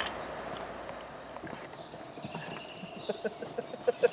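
A songbird singing a fast phrase of high, downward-sliding notes. In the second half it is followed by a quick run of short, low, evenly repeated notes, about five or six a second.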